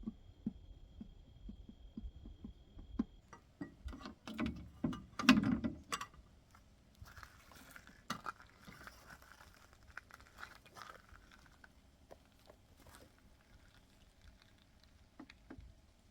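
A run of small clicks, taps and knocks from objects being handled, loudest about five seconds in, followed by a few seconds of soft hiss and scattered ticks.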